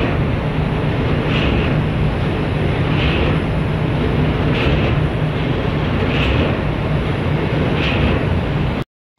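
Steady low rumble and rushing water from a large container ship's stern as it passes slowly, its propeller churning the water. A soft hiss repeats about every second and a half. The sound cuts off abruptly just before the end.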